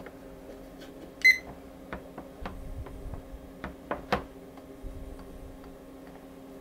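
A single short electronic beep about a second in, over a steady electrical hum, with scattered light clicks and knocks from a print being handled in a plastic darkroom processing tray.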